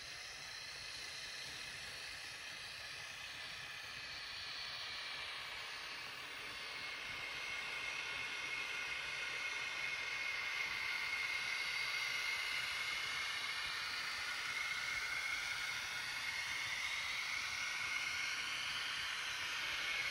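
Märklin mini-club Z scale model trains running on the track: the small electric motors of the locomotives whine, several high tones slowly rising and falling in pitch over a steady hiss, growing louder over the first ten seconds or so.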